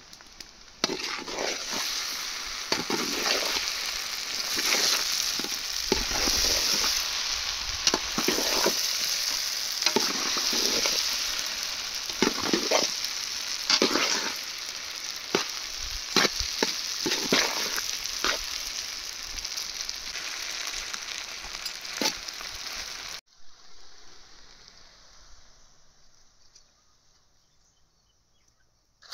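Chicken noodles sizzling in a hot pan as they are stir-fried, with a spatula striking and scraping the pan every second or so. About three quarters of the way through, the sizzle stops suddenly and only a faint, fading hiss is left.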